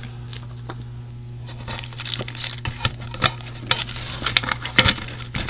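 A hand rummaging in a small metal tin and moving small items of survival gear about: a string of light clicks, taps and crinkles that starts about a second and a half in, over a steady low hum.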